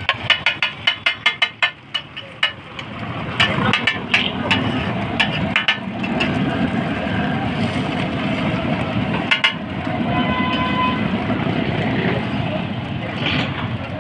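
A quick run of metal clinks from a steel cup and spatula on a large flat griddle during the first couple of seconds, as egg is poured and spread. Then a steady rumble of street traffic, with a few scattered clinks and background voices.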